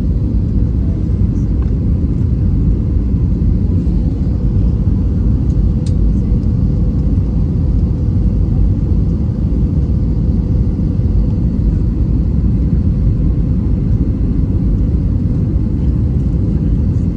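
Steady low rumble of an Airbus A320 passenger cabin in flight: engine and airflow noise heard from a window seat beside the wing.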